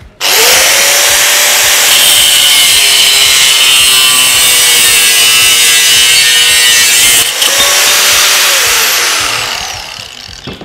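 Bosch GWS 7-115 angle grinder with a metal cutting disc, switched on and spinning up at once, then cutting through a square steel tube with a steady high whine and a grinding hiss. Near the end the whine rises briefly as the disc comes free of the cut, then the grinder is switched off and winds down.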